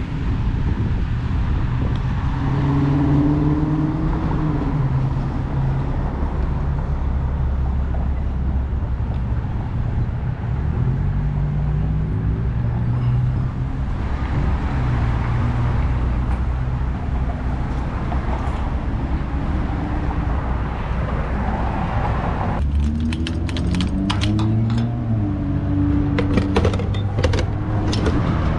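1970 Chevrolet C10 pickup's engine running on the road, its pitch climbing and falling several times as it accelerates, over steady road noise. Near the end the road noise drops and a run of sharp clicks sounds.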